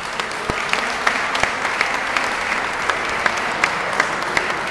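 Audience applauding steadily, with a few sharper individual claps standing out.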